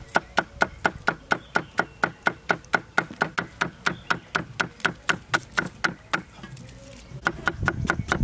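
Cleaver chopping a leek on a round wooden chopping block, steady sharp knocks of the blade on the wood at about four a second. The chopping stops for about a second near the end, then starts again.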